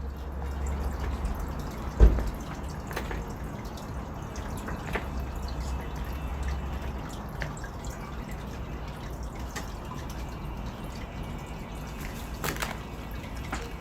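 Water dripping: scattered single drips over a low rumble, with one sharp thump about two seconds in.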